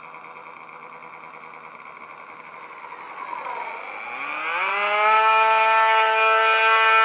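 Freewing F-18C RC jet's 90 mm electric ducted fan whining faintly at a distance, then spooling up about four seconds in: a fast-rising whine that settles into a loud, steady high-pitched whine with many overtones as the jet pulls up into a climb at high throttle.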